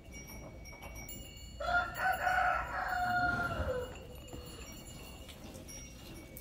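A rooster crowing once: one call of about two seconds that drops in pitch at its end.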